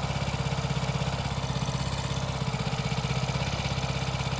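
Hero Passion Pro's single-cylinder four-stroke engine idling evenly, with no timing-chain rattle now that a new timing chain kit has been fitted and the tensioner bled of air.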